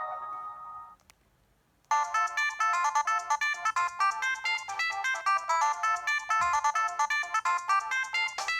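Preloaded ringtones on a ZTE S2X mobile phone. One tune ends on held notes that die away, there is a second of silence, and about two seconds in the next ringtone begins: a quick melody of short electronic notes.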